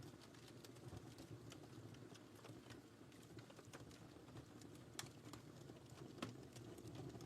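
Fire crackling in a fireplace: scattered sharp pops and ticks over a low steady rustle of flame, the loudest pops about five and six seconds in.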